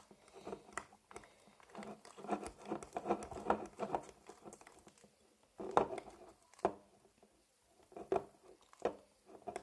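Fluffy slime mixture being stirred in a bowl with a pencil: irregular sticky squelches and clicks as the borax water thickens it.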